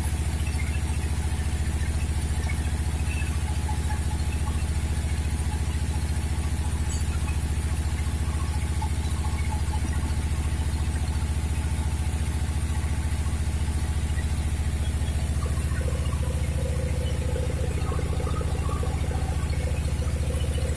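A sawmill's engine running steadily with a constant low hum. A faint extra whirring joins in near the end.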